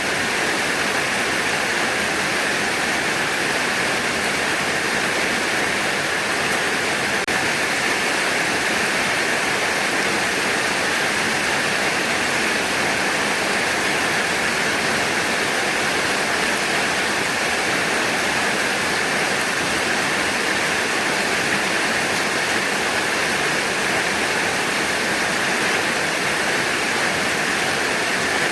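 Heavy rain falling steadily, a dense, even hiss that holds unchanged throughout.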